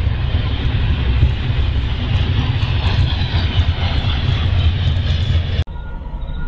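Double-stack intermodal freight train passing at speed: a loud, steady rumble of wheels on rail and rattling container cars. It cuts off abruptly about five and a half seconds in, leaving a much quieter background.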